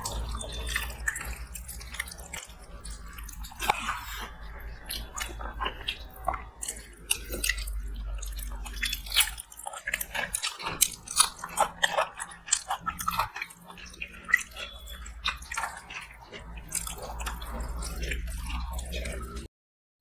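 People chewing and eating a meal, close to the microphone: irregular wet mouth clicks and smacks over a steady low hum, cutting out briefly near the end.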